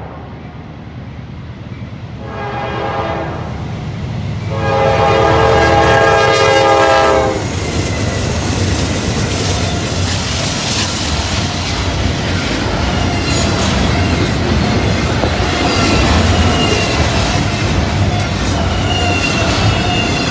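Air horn of a Norfolk Southern GE Dash 9 locomotive sounds a short blast, then a long, louder blast, closing its grade-crossing signal. Three Dash 9s then rumble past, followed by the rolling clatter of double-stack intermodal well cars, with faint wheel squeal now and then.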